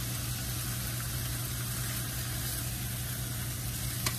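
Pork chops sizzling on a hot stovetop griddle, a steady hiss over a constant low hum. There is one sharp click of the tongs on the griddle near the end.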